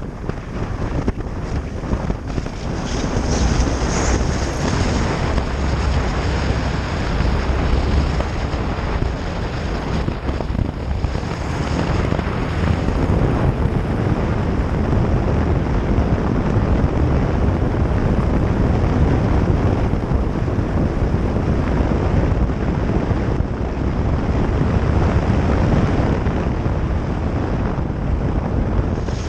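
Wind buffeting a motorcycle-mounted microphone over the steady running of the motorcycle's engine and its tyres on a gravel road.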